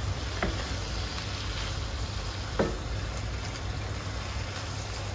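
Saucy stir-fry sizzling in a frying pan while a wooden spatula stirs it, with a couple of light clicks of the spatula against the pan.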